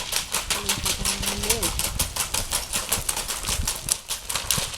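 A mare's hooves striking the ground in a fast, even rhythm of about eight or nine strikes a second. This is typical of the quick four-beat paso gait of Colombian criollo horses.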